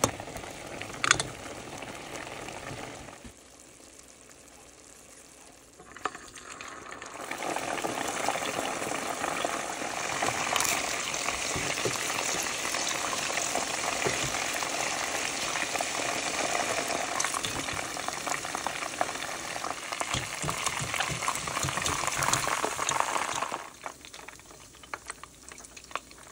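Chicken drumsticks frying in hot oil: a steady sizzle with dense crackling. It is softer for a few seconds about three seconds in, then louder until it drops away near the end.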